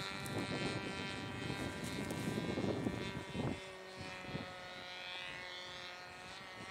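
Homemade plastic RC model airplane flying overhead, its motor and propeller giving a steady pitched drone that grows quieter after about three and a half seconds.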